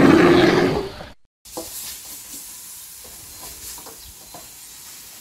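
A loud intro sound effect lasts about the first second. Then come the sizzle of food stir-frying in a wok and the scrape and clink of a metal spatula against the pan, several times.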